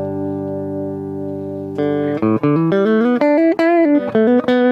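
JCraft LT1 Telecaster-style electric guitar played clean, straight into an audio interface with no amp or effects. A held chord rings for about two seconds, then a melodic run of single notes follows, with a bent or wavering note in the middle.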